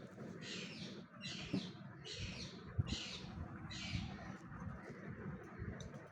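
Baby Indian ringneck parakeet giving harsh, rhythmic begging calls while being hand-fed, five calls about a second apart that stop about four seconds in.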